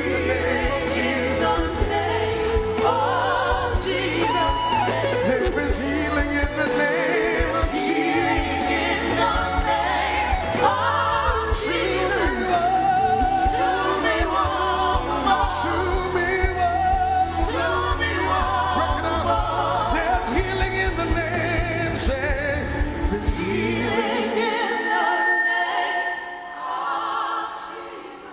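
Live gospel worship music: voices singing with vibrato over a band with a heavy bass line. The bass drops out about 24 seconds in, and the music grows quieter near the end.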